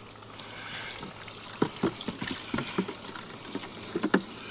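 Water running and spraying from an outdoor wall spigot into a plastic bucket as it fills, with a few light knocks from the bucket being handled.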